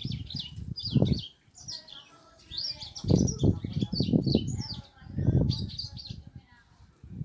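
Small birds chirping in quick, repeated high twitters, over recurring louder bursts of low, muffled sound.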